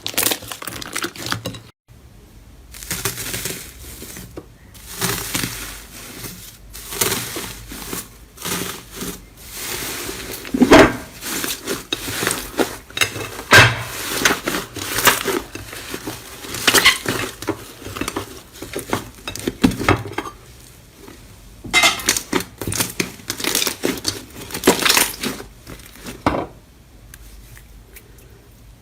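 Slime squeezed, pressed and stretched by hand, giving dense crackling and clicking pops in runs broken by a few short pauses.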